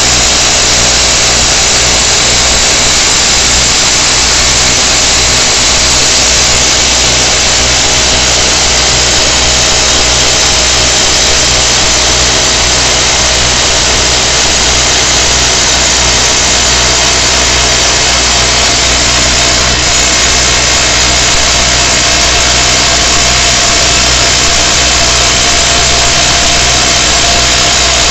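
Excavator-mounted rock drill attachment drilling continuously into granite, a loud, steady hammering din over the excavator's running engine.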